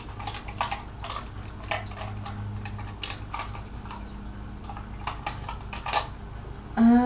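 Makeup brushes and pencils clicking and rattling against each other and their cup as a hand sorts through them, in light, irregular clicks. Just before the end, a brief humming tone, the loudest sound.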